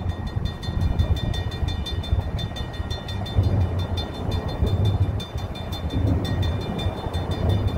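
Freight train's EMD diesel locomotives (two SD40-2s and a GP40-2) heard as a low, uneven rumble, with a faint steady high whine over it.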